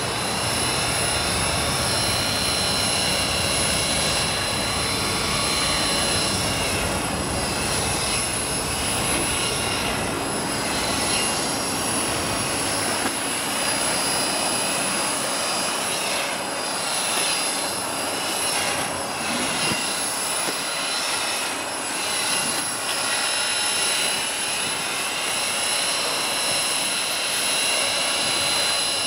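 Radio-controlled model helicopter hovering low over the ground and turning slowly in place. Its spinning rotors and drive give a steady whine with high held tones, which waver slightly in the middle as it turns.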